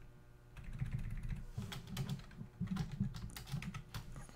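Typing on a computer keyboard: keys clicking in short, irregular runs as a line of text is retyped. The clicks are sparse at first and come more often after about half a second.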